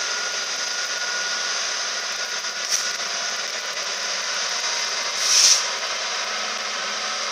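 A Class 66 diesel freight train passing at a steady speed, its hopper wagons giving a steady noise of wheels on rail. Two brief high-pitched bursts of noise cut through it, a short one nearly three seconds in and a louder one a little after five seconds.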